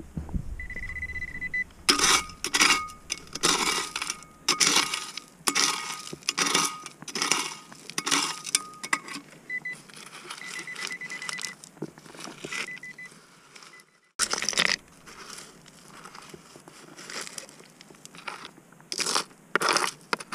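Stones and gravel crunching and scraping as they are moved by hand, in repeated short bursts. Under them, a metal-detecting pinpointer sounds a thin high tone, then short intermittent beeps as it is held over a buried metal target.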